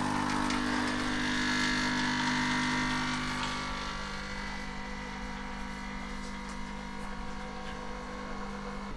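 Capsule coffee machine's pump buzzing steadily, with a hiss in the first few seconds, stopping near the end.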